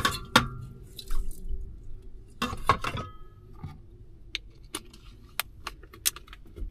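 Metal lid of a small electric rice cooker set in place with a clink and a brief ringing tone near the start, then another clatter with the same short ring about two and a half seconds in, followed by a few light ticks and clicks of things being handled.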